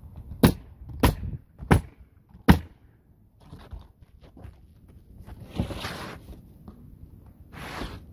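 Ridgid 15-degree coil roofing nailer firing four times in quick succession, about two-thirds of a second apart, driving nails through asphalt shingles. After a pause come two softer, longer scraping sounds.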